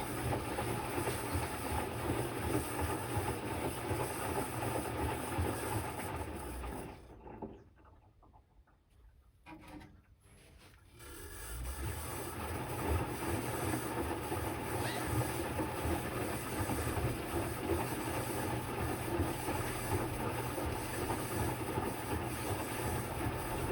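Electrolux Quickwash commercial washing machine running a rinse cycle: a steady rumble of the turning drum that stops for about four seconds some seven seconds in, then starts again.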